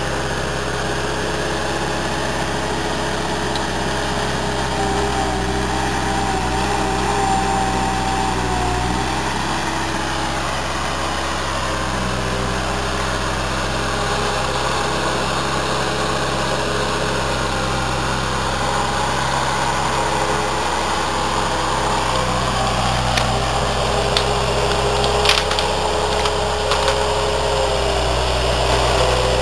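Bobcat 873 skid-steer loader's diesel engine running steadily, its pitch shifting slightly now and then as the machine works, with a few sharp knocks near the end.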